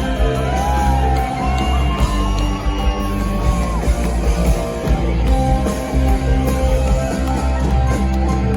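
Live rock band playing loudly, with an electric lead guitar holding long notes that bend up and down in pitch over bass and drums, and shouts from the crowd.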